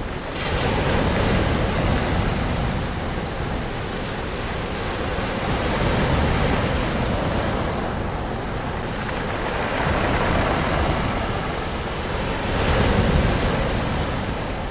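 Ocean surf: waves washing onto a shore in a steady rush of noise that swells and eases four times, each surge a few seconds apart.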